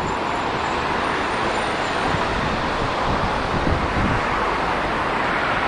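Steady outdoor noise on a city bridge: road traffic, with water pouring over a river weir below.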